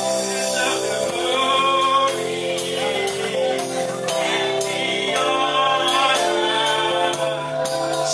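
Gospel music with singing over sustained chords and a steady beat.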